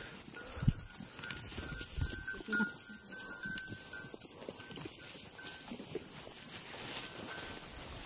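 Goats licking and nibbling salt off stones and grass, with scattered soft knocks and scuffs, one louder knock less than a second in, over a steady high-pitched insect chorus.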